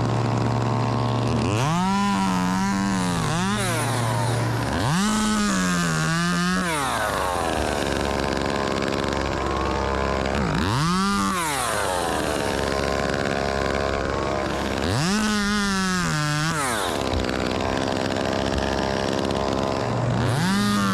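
Chainsaw idling and being revved up to full throttle and back down about five times. Each burst lasts one to two seconds.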